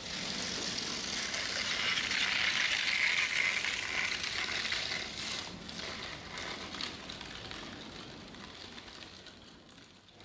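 Outdoor street noise: a steady hiss of traffic that builds over the first few seconds, then slowly fades away.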